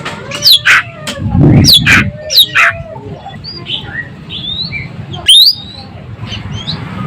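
Ekek keling bird calling in full voice: a string of loud, sharp calls with quick rising whistled notes, coming in clusters about half a second in, between one and three seconds in, and again a little after five seconds, with softer chattering notes between.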